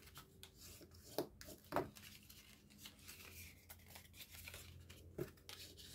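Quiet handling of a folded paper band: a bone folder creasing its folds and the cardstock rustling, with a few brief rustles about a second in, near two seconds, and shortly after five seconds.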